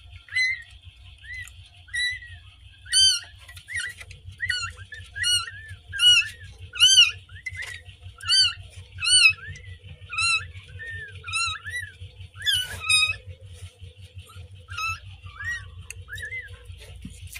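Newborn kittens mewing: a rapid series of short, high-pitched cries, one or two a second, loudest in the first half and thinning out near the end.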